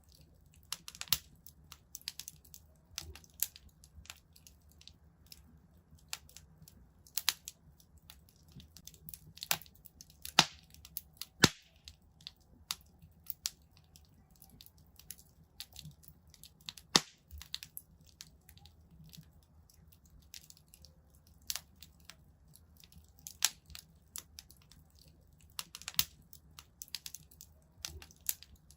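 Wood fire crackling in a fireplace: irregular sharp pops and snaps, a few of them louder, over a low steady rumble of the flames.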